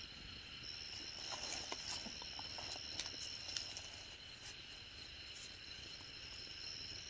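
Night insect chorus: a steady, high-pitched trilling in several pitches at once, with a few faint clicks and rustles between about one and four seconds in.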